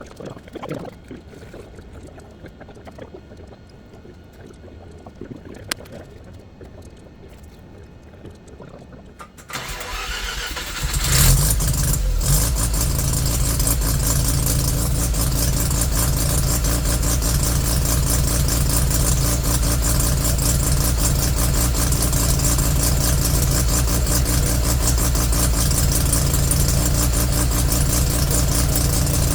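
Turbo Mazda RX-7's rotary engine cranked by the starter about ten seconds in, catching within a second or two and then running steadily on its first start after being reinstalled.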